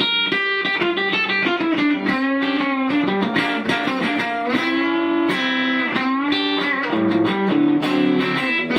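Rickenbacker 325 short-scale electric guitar played as a single-note lead line, with several notes bent up and back down in pitch.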